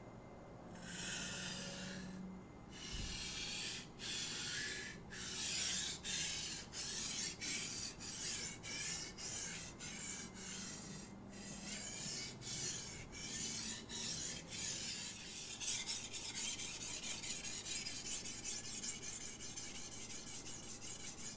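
Stainless steel knife blade being stroked across a wet Shapton water stone, a rasping scrape on each pass. The strokes are slow, about one a second, then quicken to about three or four a second for the last few seconds.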